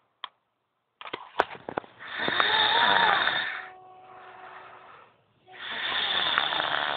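A girl snoring loudly: two long snores about three and a half seconds apart, with a quieter breath between them. A few short clicks come just before the first snore.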